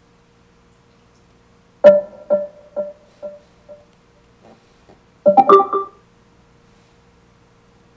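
Harman Kardon Aura Studio 3 speaker playing its electronic prompt chimes in answer to IR remote presses. A pitched chime about two seconds in repeats in fading echoes, and a second, denser cluster of tones follows at about five seconds, over a faint steady hum.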